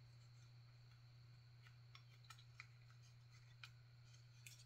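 Near silence: a steady low hum with about seven faint, light clicks of small plastic model parts being handled against each other.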